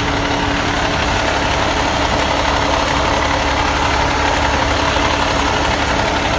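Diesel engine of a 2011 Pierce rescue fire engine idling steadily, heard from beneath the chassis.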